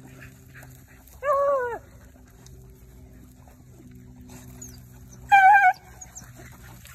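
Beagle-type rabbit hound giving two short, high yelping bays, the first about a second in, bending down in pitch at its end, the second about four seconds later.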